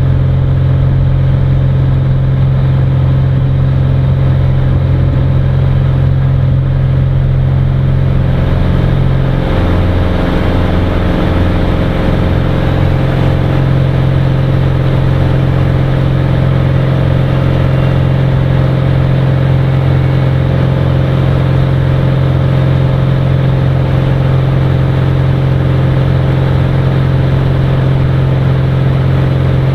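Cirrus SR20's four-cylinder piston engine and propeller running steadily, heard from inside the cockpit, with a slight shift in engine tone about eight or nine seconds in.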